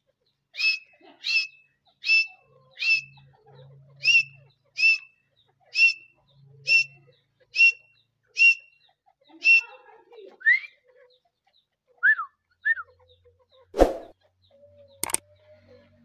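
Grey francolin calling: a run of about eleven short, sharp, whistled notes, roughly one every three-quarters of a second, followed by a few slurred, gliding notes. Two sharp clicks sound near the end.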